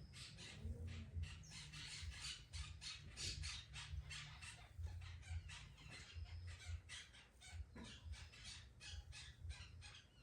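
A cat licking its fur with its rough tongue, a quick run of short rasping strokes at about three a second.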